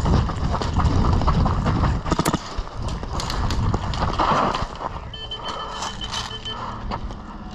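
Footsteps crunching on gravel as a player moves about, with scattered clicks and knocks and a quick run of clicks about two seconds in. A faint steady high tone sounds for about a second and a half a little past the middle.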